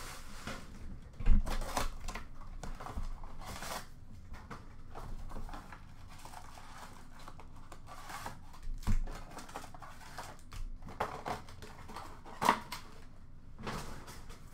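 Cardboard blaster box of 2005-06 Fleer Ultra hockey cards being opened and handled, with rustling, tearing and scattered knocks; the loudest is a thump about a second in.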